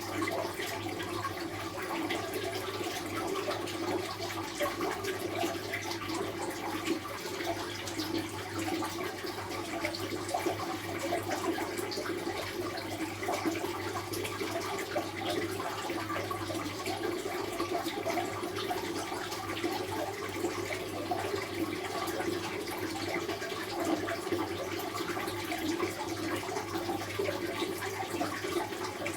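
Running water, a steady flowing and splashing that does not let up.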